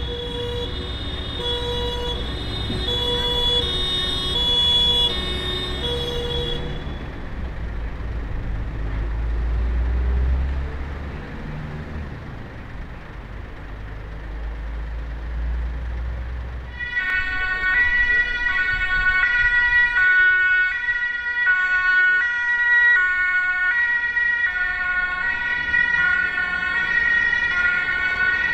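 German emergency-vehicle two-tone siren (Martinshorn) alternating between two pitches for the first six seconds or so. Then comes about ten seconds of low vehicle engine and traffic rumble. A second, louder two-tone siren starts about seventeen seconds in.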